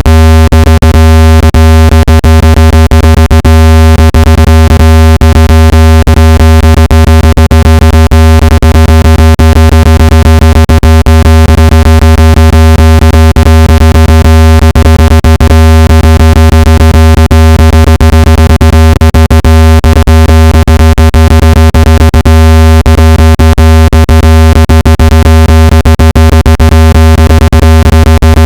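Loud, steady, low-pitched synthesized test tone of the kind played to push water and dust out of a phone speaker. It is buzzy with many overtones and crackles with rapid clicks throughout, and does not change.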